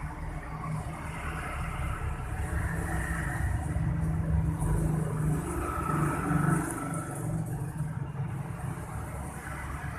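A car engine running, a steady low rumble that swells for a few seconds in the middle.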